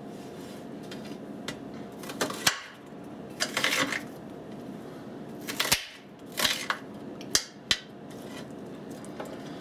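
Kitchen knife dicing an onion on a plastic cutting board: a handful of sharp, uneven taps of the blade on the board, with short scraping and slicing bursts between them.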